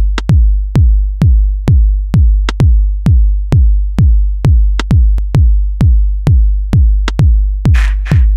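Electronic dance music made in Reason: a drum-machine kick drum and deep bass hit about twice a second in a steady beat, with a sharp high click about every two seconds. A burst of hissing noise swells near the end.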